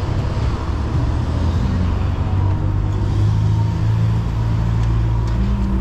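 Cars driving past on a city street, their engines running with a steady low hum; one engine's note rises a little about halfway through as it speeds up.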